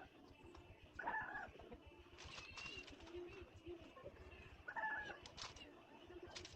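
Faint bird calls outdoors, with two louder short calls, one about a second in and one near five seconds, over quieter lower-pitched calling.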